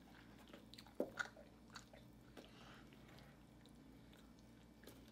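Faint chewing and mouth sounds of people eating turkey wings, with a few soft clicks and one sharper click about a second in.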